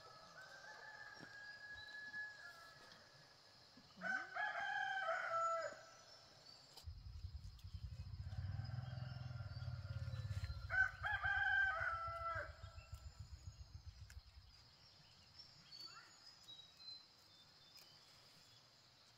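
Rooster crowing twice, about four seconds in and again about ten seconds in, over a steady high buzz. A low rumble comes in about seven seconds in and fades out near fourteen seconds.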